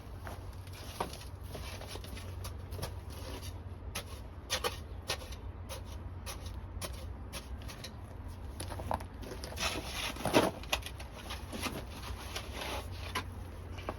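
Scattered light knocks, taps and scrapes of work being handled, with a sharper knock about ten seconds in, over a steady low hum.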